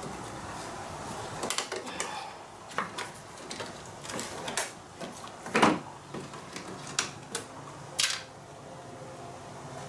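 Irregular clicks, taps and knocks of plastic trim clips and hand tools as the plastic cover panel over a car's radiator support is pried loose with a screwdriver and lifted away. The loudest knock comes a little past halfway.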